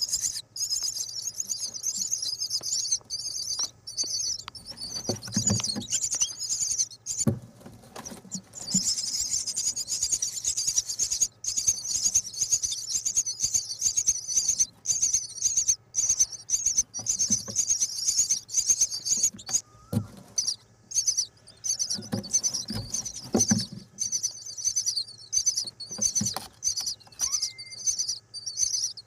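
Nestling birds calling in a continuous, high-pitched chorus of chirps, broken by short pauses. A few soft low thumps sound a few seconds in and again later.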